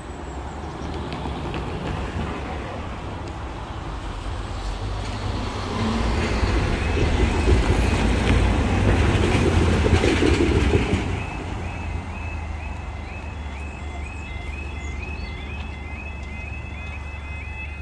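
Road traffic passing a railway level crossing, with a heavy vehicle loudest about halfway through. Under it, from about six seconds in, the crossing's warning alarm sounds a quiet warble repeating about twice a second: the signal that the barriers are about to lower for an approaching train.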